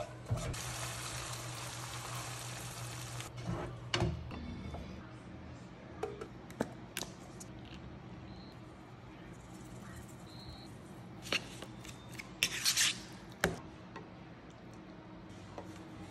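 Ground beef sizzling in a nonstick frying pan as it is stirred with a spatula, a steady hiss that stops after about three seconds. Then scattered clicks, taps and short rustles of food prep, over a low steady hum.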